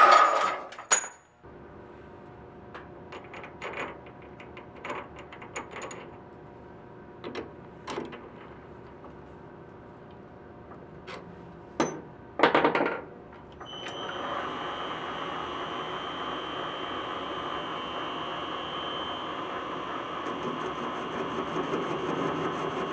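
A horizontal metal-cutting band saw finishes its cut through 1/2-inch threaded rod and stops in the first second. Then come scattered metal clicks and knocks, two louder ones about 12 seconds in. From about 14 seconds the PM-1127VFI benchtop lathe runs steadily with a high whine from its variable-speed drive, its chuck spinning a short length of threaded rod.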